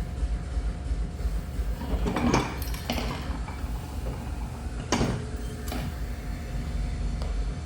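A few scattered metal clinks and knocks of tools and parts being handled on a disassembled electric-car drive unit, over a steady low hum.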